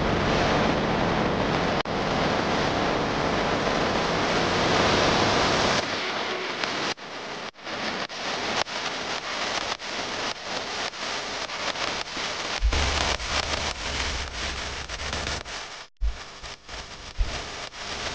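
Jet engine noise of an F-35B hovering on its lift fan. A loud, steady rush lasts about six seconds, then drops to a quieter, uneven rush broken by short cracks.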